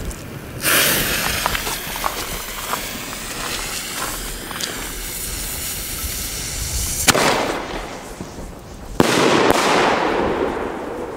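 Pyroland 'Pech und Schwefel' consumer firework going off after its fuse is lit: a loud fizzing hiss with small crackles starts about a second in and runs for several seconds, then a sharp bang, and about two seconds later a second loud burst that hisses away slowly as stars fly.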